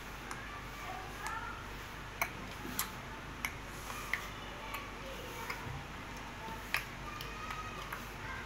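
Hands rubbing and mixing flour with ghee in a stainless steel bowl for shankarpali dough, with about a dozen irregular sharp clicks and taps against the bowl.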